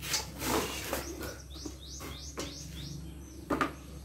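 A bird chirping a quick run of about five or six short high chirps. Around it, handling noise: a rustle at the start and a couple of sharp knocks, the loudest near the end.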